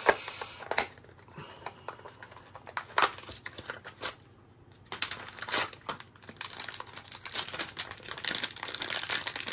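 A small cardboard box being opened by hand, its flaps scraping and clicking. From about halfway on, a clear plastic zip bag crinkles as the spare extruder unit inside it is handled.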